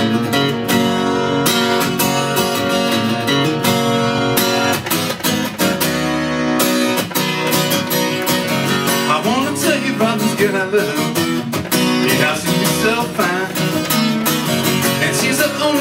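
Live music: an acoustic guitar strummed in a steady rhythm, with a wavering melody line joining about nine seconds in.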